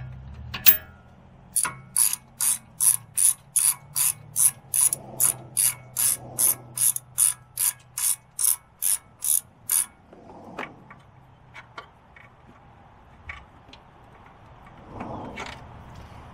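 Hand ratchet wrench being cranked back and forth on a bolt, a run of about two dozen quick ratcheting strokes at roughly three a second that stops about ten seconds in, followed by a few faint clicks.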